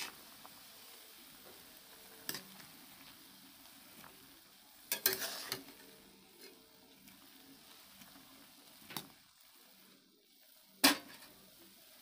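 Soya chunks sizzling faintly in hot oil in an aluminium kadhai, stirred with a metal spatula. The spatula scrapes and knocks against the pan several times, with a cluster about five seconds in and the loudest knock near the end.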